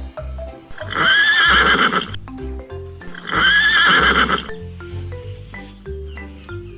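Horse neighing twice, each whinny about a second long with a wavering pitch, over background music with a steady beat.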